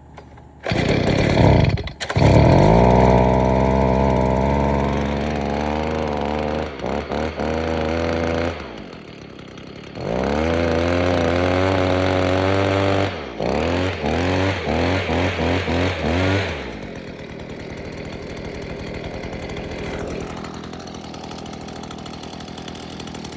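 Gas string trimmer's small engine starting, running and falling back, then being throttled up and blipped several times in quick succession before it stops. The trimmer is running again after sitting out a storm.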